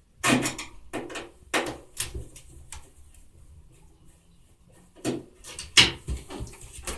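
A screwdriver working out the screws that hold the top cover of a Samsung washing machine: scattered clicks and knocks of tool and hands on the cabinet. They come in two clusters with a lull between, and the sharpest knock falls near the end.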